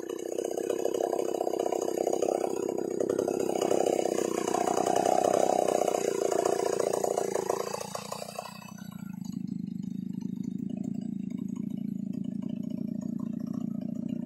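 Large two-stroke chainsaw, an assembled copy of the Stihl 070, running at full throttle as it rips lengthwise through a log. About eight seconds in the throttle is released and it drops to a lower, steady idle.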